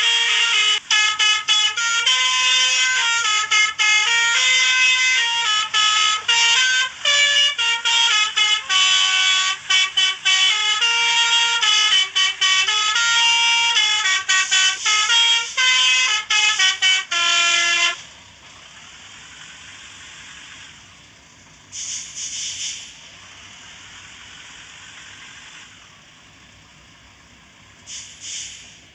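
Basuri telolet horn, a multi-tone melody horn, playing a fast stepped tune, the notes changing several times a second, then cutting off abruptly about two-thirds of the way in. After that only a low background remains, with two short bursts of hiss.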